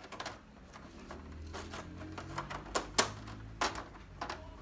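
Plastic panel frame of an LED TV being pressed down into its snap locks: a run of irregular sharp plastic clicks and snaps, the loudest about three seconds in.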